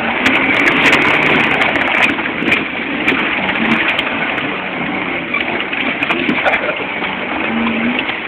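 Off-road 4x4 driving over a rough muddy forest track, heard from inside the cab: the engine runs under a dense rattling road noise, with scattered clicks and knocks.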